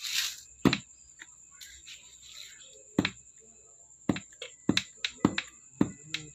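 Sharp clicks: one about a second in, another near the middle, then a quick, uneven run of clicks in the last two seconds, over a faint steady high-pitched whine.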